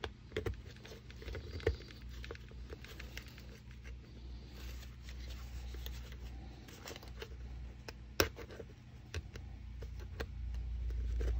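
Handling noise from fitting a clip-in M1 helmet liner into a steel helmet shell by hand: the nylon webbing rubs and the metal clips scrape and click against the shell. One sharp click about eight seconds in, over a steady low hum.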